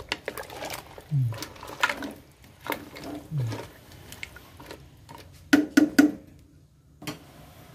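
Wooden spoon stirring mussels, prawns and clams in a stainless steel pot: scattered clicks and knocks of shells and spoon against the pot, with three louder knocks in quick succession about five and a half seconds in.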